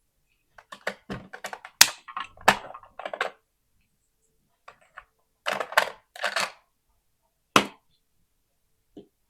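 Small hard plastic toy pieces being handled, clicking and clattering against each other in two quick flurries, then one sharp click near the end.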